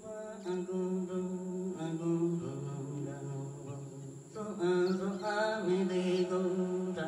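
Chant-like vocal music: voices humming long held notes over a low sustained tone, which steps lower about two and a half seconds in.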